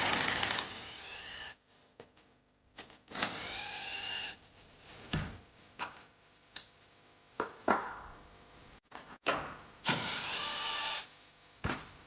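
Hands-on repair sounds on a car part: several sharp knocks and clicks, and three bursts of about a second each of a whirring, scraping noise.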